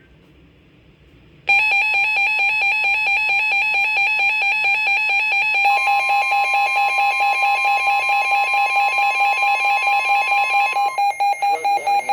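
Weather alert radio's alarm going off for an incoming NWS Flood Warning: a loud, fast-pulsing electronic beep starting about a second and a half in. From about six seconds in, a steady single tone, the NOAA Weather Radio warning tone, sounds underneath it. Near the end the alarm changes to rapid on-off beeps.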